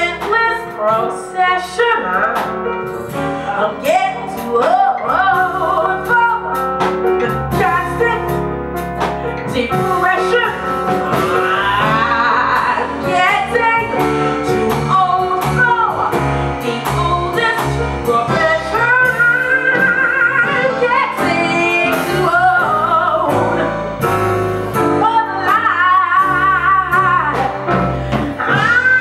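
A woman belting a Broadway show tune live into a microphone, her voice sliding between notes with a wide vibrato, over piano and electric bass accompaniment.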